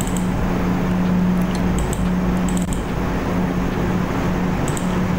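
Steady background hum with a hiss of room noise, and a few faint clicks about two seconds in and again near the end.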